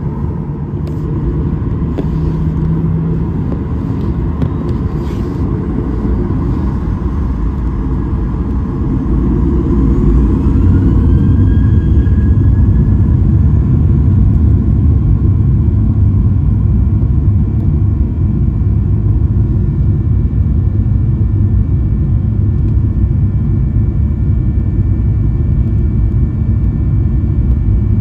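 Cabin noise of a Boeing 737-800's CFM56-7B turbofan engines: a steady low rumble that grows louder about ten seconds in, as a whine rises in pitch and then holds. The engines are spooling up to high thrust.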